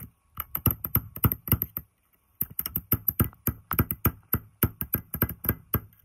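A steel bar striking repeatedly against the copper-wound stator inside an old air-conditioner compressor's steel shell, breaking at the burnt windings. It makes a fast run of sharp metallic knocks, about four to six a second, with a short pause about two seconds in.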